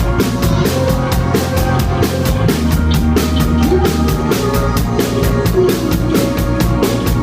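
Live rock band playing an instrumental passage: a drum kit keeps a steady driving beat, about four to five hits a second, under sustained keyboard and bass notes, with no singing.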